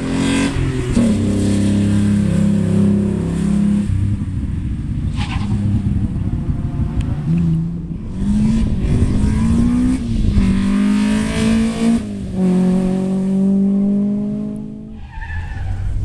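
Classic rally car engines revving hard as the cars accelerate along the stage, in a run of short clips. Each engine climbs in pitch and drops back at the gear changes.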